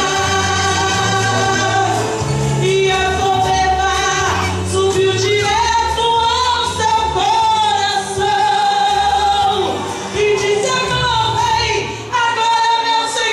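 A woman singing a gospel song into a handheld microphone, with long held notes over instrumental accompaniment that carries a line of low bass notes.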